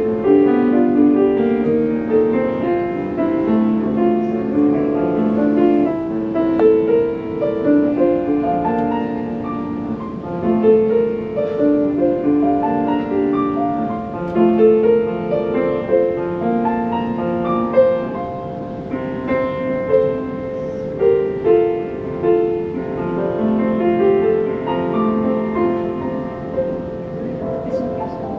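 Classical piano music, many notes played in a continuous flowing line with chords.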